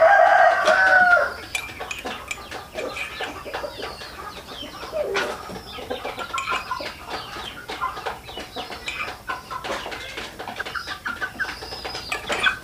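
Chickens clucking: a loud squawk in the first second or so, then quieter clucks with scattered clicking.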